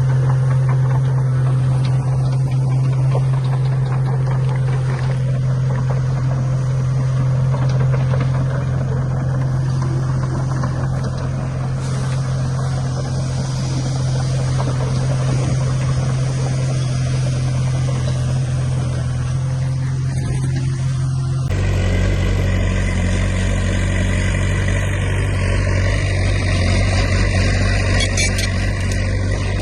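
Heavy diesel construction machinery engine running steadily under work. About 21 seconds in the sound changes abruptly to a different steady engine note.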